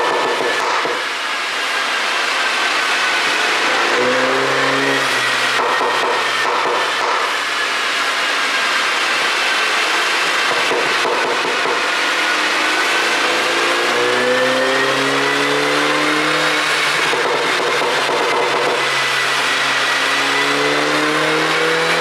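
2019 MINI JCW Convertible's turbocharged 2.0-litre four-cylinder, on a pop-and-crackle ECU tune, pulling as the car is driven: the engine note climbs in pitch briefly about four seconds in, then in longer pulls in the second half. Under it runs steady road noise with a high whine that wavers slowly in pitch.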